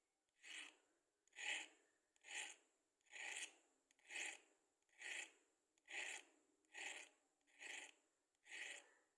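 Matchsticks scraped in soft, even rasping strokes, ten of them at a steady pace of about one a second.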